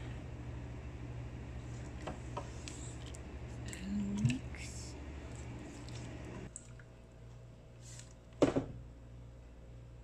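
A silicone spatula stirring lamb pieces in water in a pressure cooker's nonstick inner pot: light wet squishes, scrapes and clicks, then one sharp knock against the pot about 8.5 seconds in. A steady low hum underneath drops away about two-thirds of the way through.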